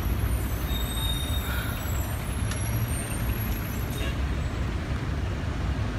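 Steady road traffic on a city street: a constant low rumble of passing cars and buses, with a brief high-pitched squeal about a second in.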